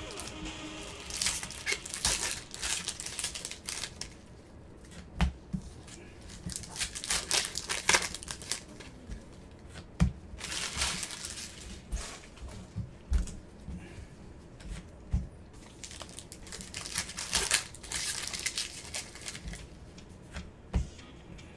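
Trading-card pack wrappers being torn open and crinkled by gloved hands, in bursts of rustling and tearing. A few sharp knocks come as cards or packs are set down on the table.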